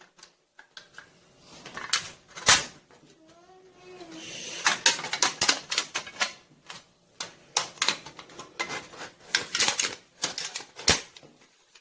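Pocket knife working the thin aluminium of a soda can: a run of sharp, irregular clicks and crinkles from the cut sheet metal.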